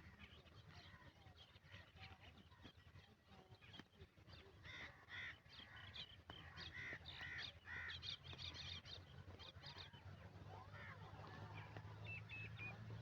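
Crows cawing in a run of short calls, about two a second, from about five to ten seconds in, over a faint steady low hum.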